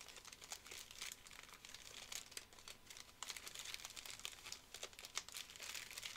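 Foil wrappers of 2020 Topps Finest WWE trading-card packs crinkling as a handful of packs is shuffled by hand: faint, with many small crackles.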